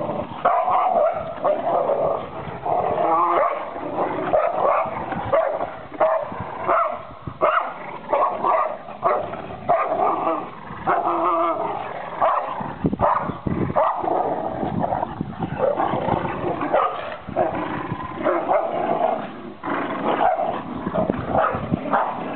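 Several dogs growling and barking continuously in rough play while tugging at a rope toy.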